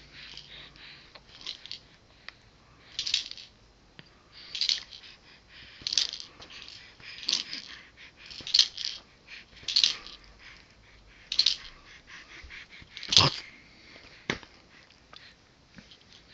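Close, breathy puffs repeating about once every second and a half, like a child breathing or sniffing near the microphone. A sharp click comes about thirteen seconds in.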